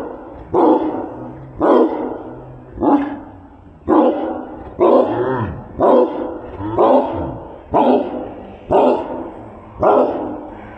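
A dog barking steadily, about once a second, ten barks in all, each trailing off briefly before the next.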